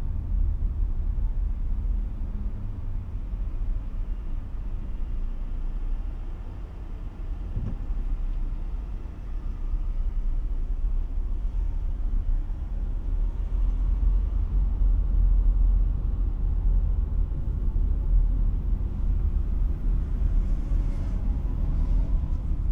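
Car driving in traffic: a steady low rumble of engine and road noise, dipping briefly about a third of the way in and then rising again.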